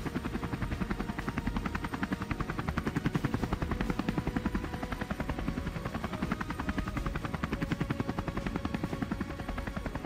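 Helicopter in flight: a steady, rapid, rhythmic beat of the rotor blades.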